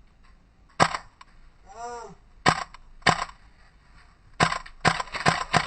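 Airsoft gun firing single shots, about eight sharp cracks at irregular spacing, with a short shout of a voice about two seconds in.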